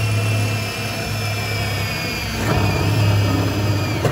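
Milwaukee cordless drill motor running steadily under load with a steady whine, dipping briefly and picking up again about two and a half seconds in.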